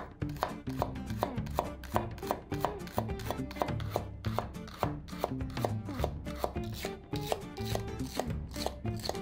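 Chef's knife slicing a green onion into thin rings on a bamboo cutting board. Each cut taps the blade against the board in a steady run of about three or four taps a second.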